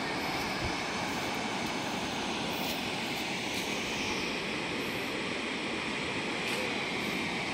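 Steady rushing roar of a waterfall: an even noise with no breaks or changes.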